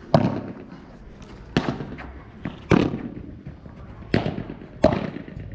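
Padel rally: sharp pops of the ball struck by padel rackets and bouncing on the court, five in all, roughly a second apart.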